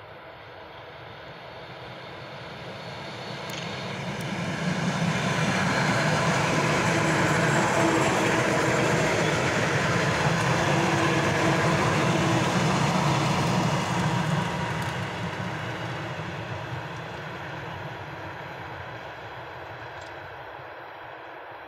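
Six-car ER9M electric multiple unit passing on the line, its wheels on the rails and a steady hum. The sound builds as it approaches, is loudest for about ten seconds while the cars go by, then fades as it draws away.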